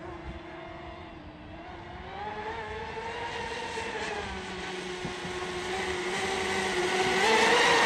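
Oxidean Marine Animal 2 RC catamaran's electric motor whining on a high-speed pass. It grows steadily louder as the boat comes closer, its pitch wavering and climbing a little near the end.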